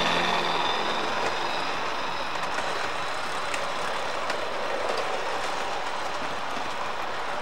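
Model electric train rolling past on its track, a steady rumbling run with faint clicks from the wheels over the rail joints. Music fades out in the first moment.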